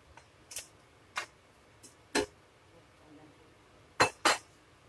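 Scattered sharp clinks and knocks of a ceramic plate and a wooden spoon against a metal pan as cooked pork is scraped back into it, with a quick double knock about four seconds in.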